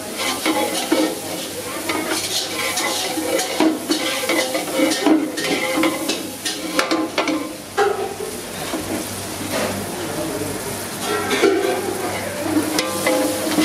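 Food being stirred in a hot pan over sizzling oil: a steady sizzle with many short scrapes and clanks of a utensil against the pan.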